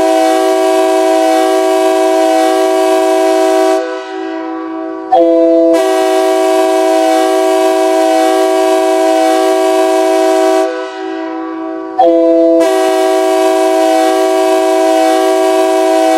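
Anchorage Wolverines hockey goal horn, a multi-note air horn chord like a train horn, sounding in long blasts of about five seconds with brief breaks about four and eleven seconds in.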